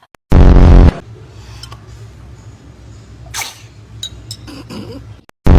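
A baby sneezing: two sudden, very loud sneezes, one about a third of a second in and another near the end, each lasting about half a second.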